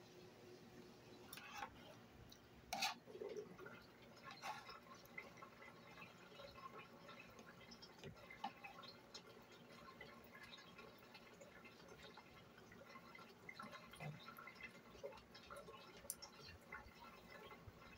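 Faint eating sounds: wet chewing and small mouth clicks from people eating chicken stir fry with noodles, with a few sharper clicks of cutlery, the loudest about three seconds in.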